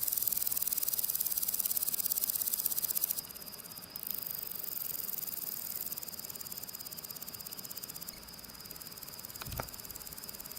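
Grasshopper stridulating: a rapid, high, fine-pulsed buzz over a steady high tone. It drops in level about three seconds in and changes again about eight seconds in, and a brief low thud comes about nine and a half seconds in.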